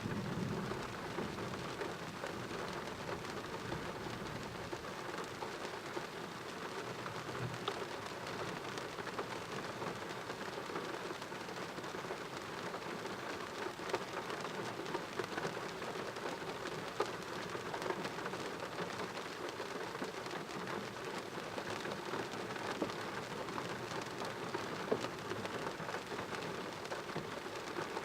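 Heavy rain falling steadily during a thunderstorm, with scattered sharper drop hits. A low rumble of thunder tails off in the first second.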